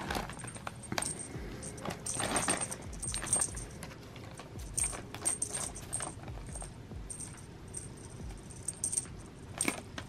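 Crumpled packing paper crinkling and rustling in irregular bursts as a cat rolls and wrestles in it, with a small bell on a feather wand toy jingling on and off throughout.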